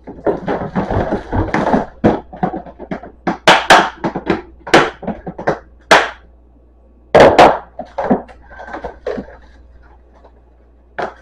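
Boxes of aluminium foil sheets, a plastic bin and plastic bags being shifted about on a cupboard shelf: a quick run of knocks, clatters and rustles, with gaps between them in the second half.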